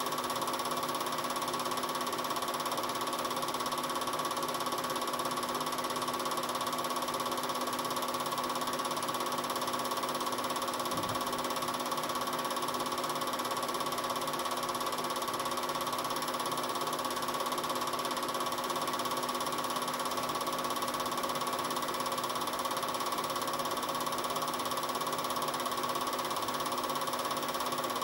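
A cine film projector's mechanism running with a steady whir and fine rapid chatter, holding one pitch throughout. It is the sound of the film being projected, not of the excavator on screen.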